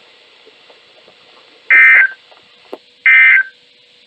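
NOAA Weather Radio SAME end-of-message data bursts: two short, loud bursts of rapid two-tone warbling data about 1.4 s apart, the EAS code that closes the weekly test broadcast.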